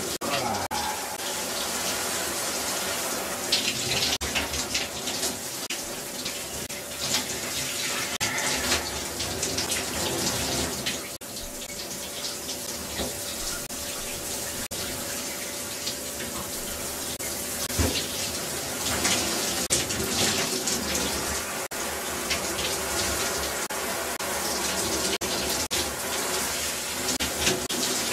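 Water running steadily, a continuous hiss of flowing water, with an occasional light knock, the strongest about two-thirds of the way through.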